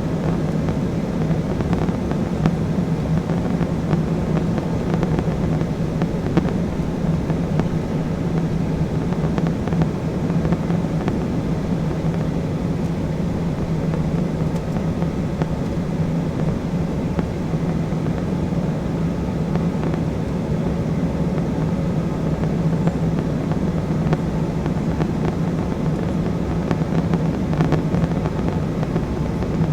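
Steady in-flight cabin noise of an Embraer E175 regional jet: the even drone of its turbofan engines and rushing air, with a constant low hum, unchanging throughout.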